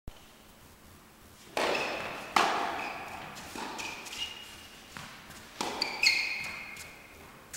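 Tennis rally on an indoor hard court: a ball struck by rackets and bouncing, about six sharp knocks starting around a second and a half in, each echoing through the hall.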